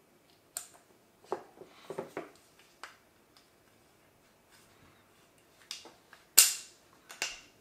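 Sharp metal clicks and taps of pins being pushed through an AR lower receiver to lock a drop-in trigger unit in place. There are about eight separate clicks, and the loudest comes about six and a half seconds in.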